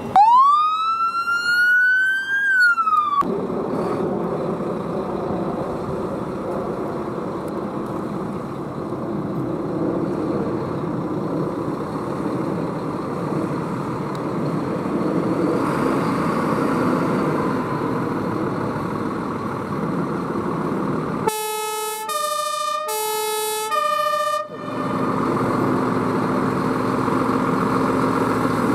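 An American-style electronic siren on a Ford Crown Victoria police car gives one rising wail that tips down and cuts off after about three seconds. Heavy diesel engines of fire engines then run as they pull away. About twenty seconds later a Dutch two-tone fire engine siren sounds four alternating low and high notes, and a diesel engine runs steadily afterwards.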